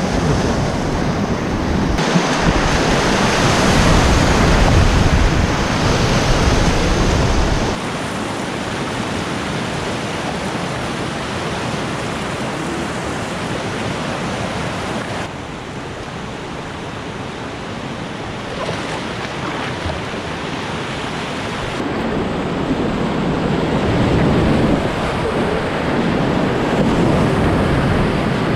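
Rushing whitewater of river rapids, heard close from a kayak on the water. It is a steady loud rush that changes abruptly in level and tone several times.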